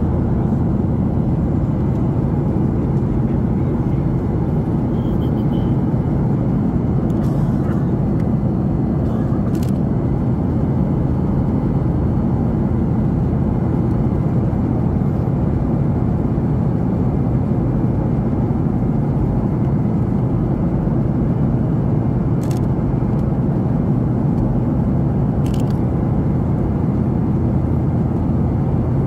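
Steady, even rumble of a Boeing 737-800's cabin in the climb, heard from a window seat: the CFM56-7B turbofans and the airflow over the fuselage, with a few faint clicks.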